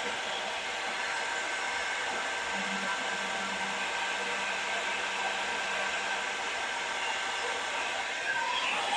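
Electric heat gun running steadily, its fan blowing hot air to shrink and seal solder seal heat-shrink butt connectors on speaker wires. A faint steady hum joins about two and a half seconds in.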